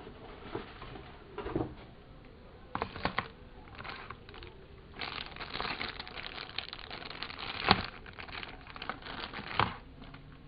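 Packaging being handled: rustling and crinkling with irregular clicks, busier in the second half, and two sharper knocks near the end.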